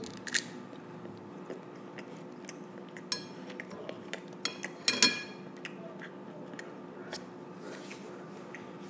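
A young girl chewing a mouthful of teriyaki chicken: small wet smacks and clicks, with a cluster of sharper ones about five seconds in, over a faint steady hum.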